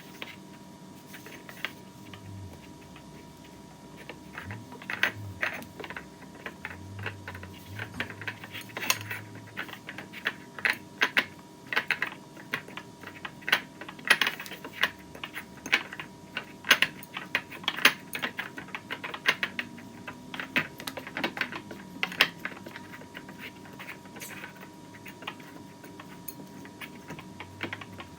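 Irregular light clinks and taps of kitchen utensils, in quick uneven runs for most of the stretch and sparser near the start and end, over a faint steady hum.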